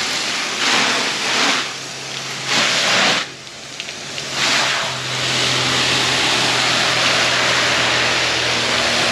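Water from a hose spraying onto a canvas tent: three short bursts, then a continuous spray from about halfway on, over a steady low hum.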